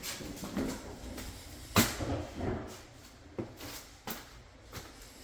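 A few sharp knocks and clatters, like things being handled or set down, the loudest about two seconds in.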